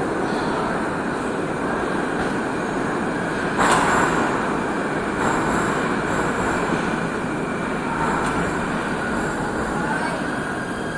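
Moscow metro station din: the steady rumble of a metro train running in the station, with a brief louder rush about three and a half seconds in.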